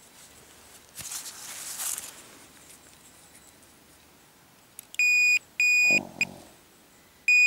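Minelab Pro-Find 25 pinpointer beeping as its button is pressed: two short high electronic beeps, a brief blip, then a longer beep near the end, as it is switched to maximum sensitivity. A soft rustle of handling comes before the beeps.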